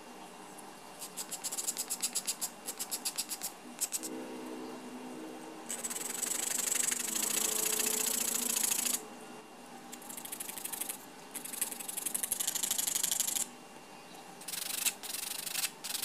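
Sandpaper rubbing by hand on a small carved wooden toy-car part, in spells of quick back-and-forth strokes, about four a second, and stretches of steady scratchy rubbing.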